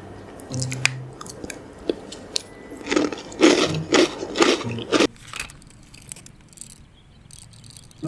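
A run of crunching, crackling noises, loudest in a cluster of bursts about three to five seconds in, with scattered clicks before and after.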